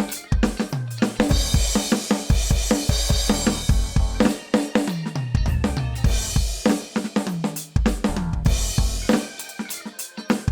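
Roland TD-17 electronic drum module's kit sounds (kick, snare, hi-hat and cymbals) played as a funk groove over a backing track with a bass line, with a cymbal wash ringing about a second in.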